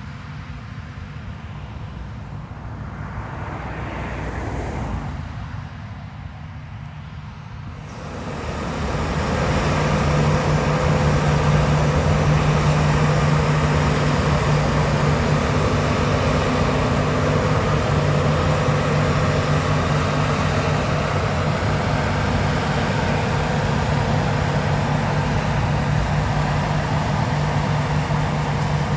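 Large diesel farm machinery engine running steadily with a low hum. A swell of noise rises and fades around four seconds in. About eight seconds in the sound jumps much louder and fuller, with a strong steady low drone from a big engine running close.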